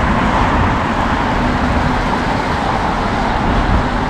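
Steady city road traffic noise: car engines and tyres running on a wet street, with a constant low rumble.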